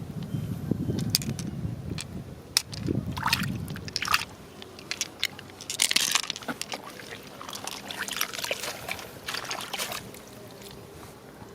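Water sloshing and splashing in irregular bursts, low and rumbling in the first few seconds, with scattered sharp clicks and knocks.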